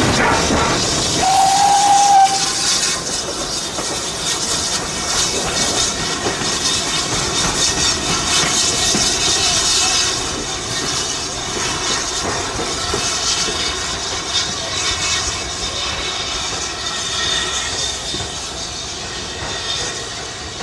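Steam locomotive whistle, one short single-note blast about a second in, then a steady hiss of steam from BR Standard Class 9F 2-10-0 No. 92134 as it moves slowly towards the platform.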